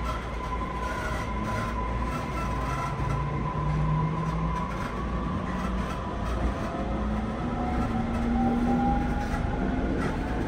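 An E231 series 1000-subseries electric train's Hitachi IGBT-VVVF inverter and traction motors, heard from inside the car. Their whine rises in pitch in several steps as the train picks up speed, over a steady rumble of running gear.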